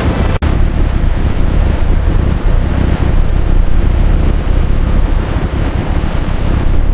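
Steady rush of wind and water with a deep low rumble, starting at a sudden cut less than half a second in.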